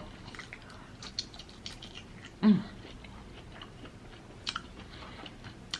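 Close-miked chewing of lobster tail meat, with small wet mouth clicks throughout and a short hummed sound about two and a half seconds in.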